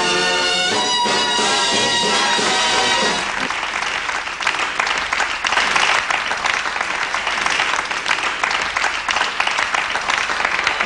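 Orchestra with brass playing the final chord of the theme song, ending about three seconds in, then an audience applauding.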